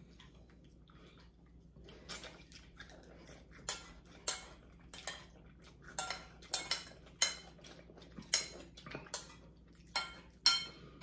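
Metal spoons and forks clinking and scraping against ceramic soup bowls as two people eat noodles: quiet at first, then sharp clinks, some ringing briefly, coming more often in the second half.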